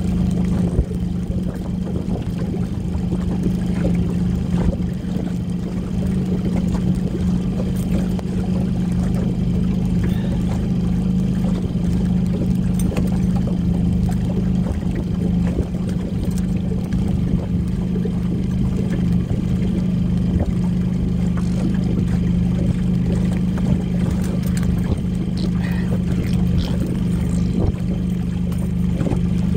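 Small fishing boat's motor running steadily at trolling speed, a constant low hum.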